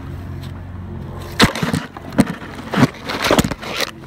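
Handling noise on the phone's microphone: a run of irregular knocks and scrapes, starting about a second and a half in, as the phone is moved against clothing, over a steady low hum.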